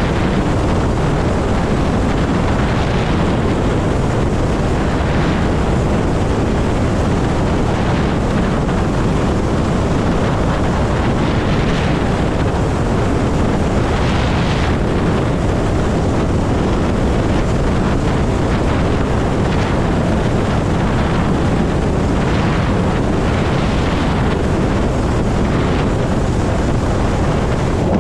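Heavy wind noise buffeting a helmet-mounted microphone on an electric motorcycle at highway speed, mixed with tyre and road noise and no engine note. The steady noise swells briefly into a higher hiss a few times.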